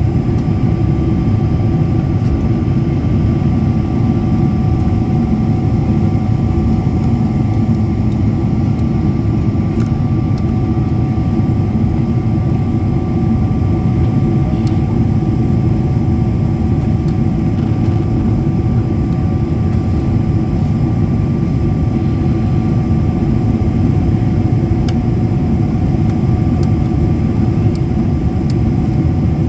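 Airliner cabin noise in flight: a loud, steady, low roar of engines and rushing air, heard from inside the cabin, with two faint steady tones above it.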